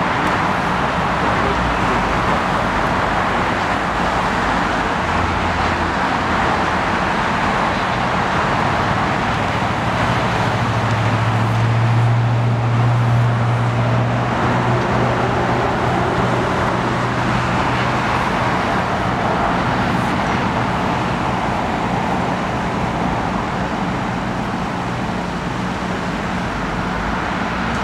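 Steady airport background noise from taxiing jetliners and road vehicles. A low hum swells about ten seconds in and fades out around sixteen seconds.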